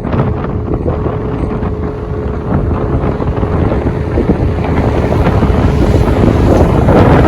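Heavy wind buffeting on the microphone of a moving motorcycle, over a low road rumble and a faint steady hum.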